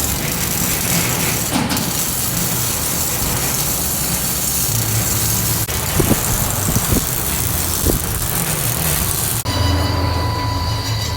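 Car on the move: heavy steady road and wind noise over a low engine and exhaust rumble, with a few light knocks. About nine seconds in the hiss drops away and a deeper exhaust drone with a faint steady whine comes forward.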